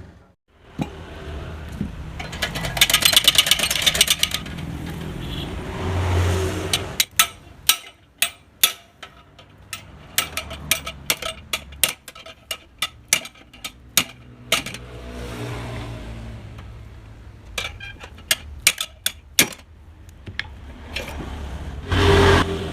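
Metalwork on a motorcycle exhaust muffler: a couple of seconds of harsh rasping from a power tool, then a long run of sharp, irregular metal strikes, about one to two a second, like hammering or chiselling on the muffler's steel.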